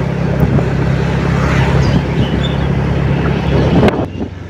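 Motorcycle engine running at a steady cruising speed, with wind rushing over the microphone. About four seconds in the sound cuts off abruptly, leaving a quieter low hum.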